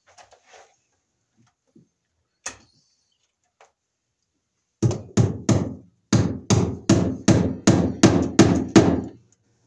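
Hammer driving cable staples into a wooden floor joist to fasten yellow 12/2 electrical cable: a single tap, then a run of about a dozen quick, sharp blows, roughly three a second, with a brief pause partway through.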